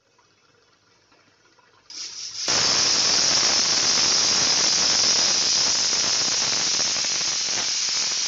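Aluminium stovetop pressure cooker whistling: steam jets out under the weight valve as one long, loud, steady hiss that comes on about two seconds in. The whistle signals that the cooker is at pressure; whistles like this are counted, four of them meaning the rice is cooked.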